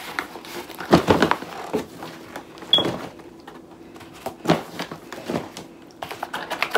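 Cardboard packaging being handled and opened: scattered knocks, scrapes and rustles of cardboard, with a brief squeak near the middle and quicker small clicks and rustles near the end.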